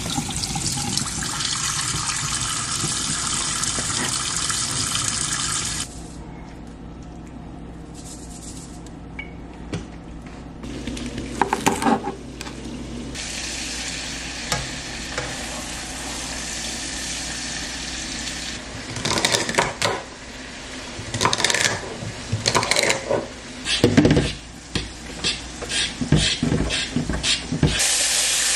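Tap water running into a stainless-steel kitchen sink for about six seconds. Then cooking sounds: metal tongs clinking and scraping in a wok, with scattered knocks of utensils and pans. Near the end a steady sizzle starts as liquid from a carton is poured into the hot wok.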